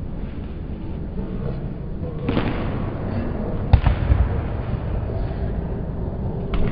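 A shot put throw on a concrete throwing circle: shoes scuffing and pivoting through the throw, then a sharp thud near the middle, around the release, with a few softer thuds after it. A steady low rumble runs underneath.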